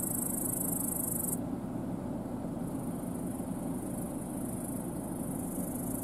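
New Holland CR10.90 combine harvester running steadily while harvesting barley, an even distant drone. A high continuous hiss on top drops away about a second and a half in.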